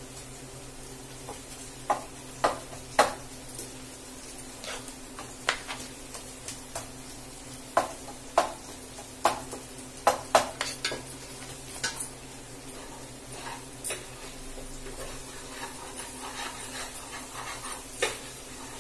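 Kitchen knife clicking irregularly against a plastic chopping board as green chillies are slit lengthwise, over a steady low sizzle of onions frying in a pan.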